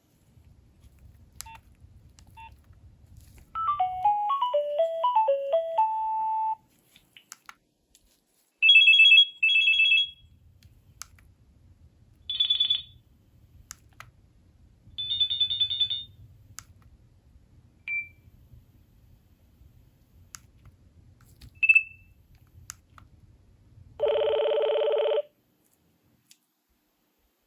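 Nokia 3300b's built-in ringtones played one after another through the phone's speaker. First comes a short stepped melody of quick notes ending on a held note. Then come several brief trilling ring signals and short beeps, and a buzzy held tone near the end, with faint clicks between them.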